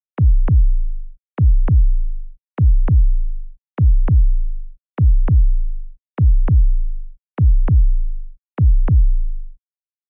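Heartbeat sound effect: a slow, even lub-dub, eight double thumps about 1.2 seconds apart (around fifty beats a minute), each pair with a deep boom under it.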